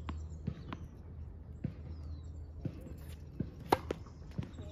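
A tennis ball is bounced a few times on a hard court, each bounce a short click. Then comes a loud pop of the racket strings striking the ball on a serve, about three and a half seconds in.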